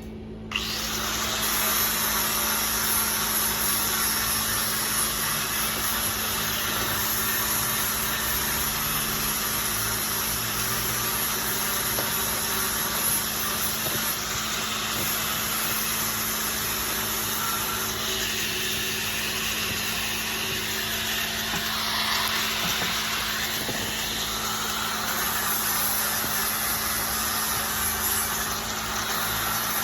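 Electric arc welding: a steady, unbroken hiss that starts about half a second in, over a low electrical hum.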